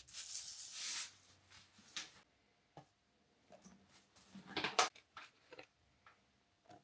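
Liquid poured from a plastic bottle into an empty plastic tub for about a second, then a few scattered light clicks and knocks, the loudest group about halfway through.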